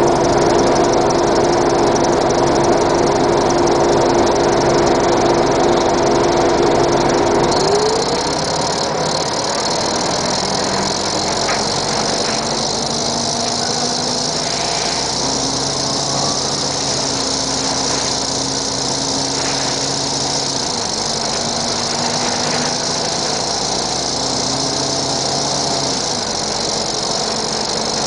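Detroit Diesel Series 50 diesel engine of a 1996 NovaBUS RTS transit bus running steadily. About eight seconds in its pitch rises briefly, then it settles lower and a little quieter, with small steps up and down in pitch after that.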